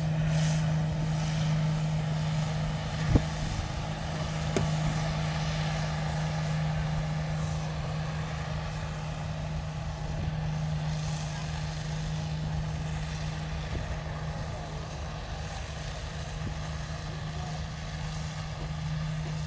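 A vehicle engine running at a steady, unchanging speed, with a sharp knock about three seconds in.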